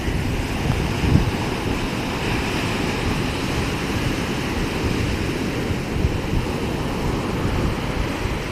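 Sea surf washing steadily, with wind buffeting the microphone in a low, uneven rumble.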